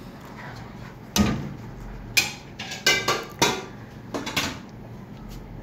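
Steel ladle knocking and scraping against a metal cooking pot while stirring a simmering gravy, with several sharp clinks spread a second or so apart.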